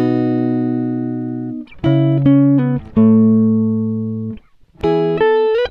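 Background music: a guitar playing a slow melody of long ringing notes that fade away, separated by short breaks, with a couple of upward slides between notes.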